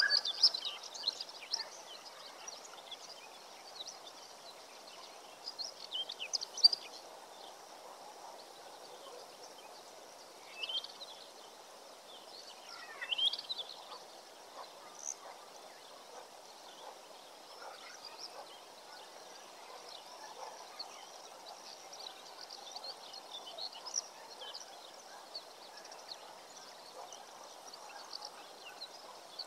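Birds chirping and calling outdoors: bursts of high chirps at the start and again about six seconds in, a couple of whistled rising and falling notes a little before the halfway point, then scattered faint chirps over a steady background hiss.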